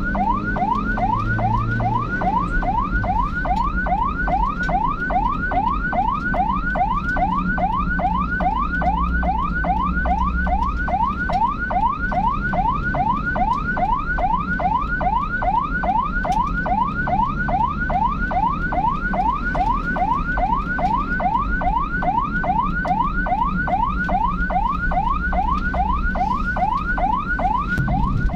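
Emergency vehicle siren on a fast yelp setting: an unbroken run of quick rising wails, about three a second, over low engine and road rumble.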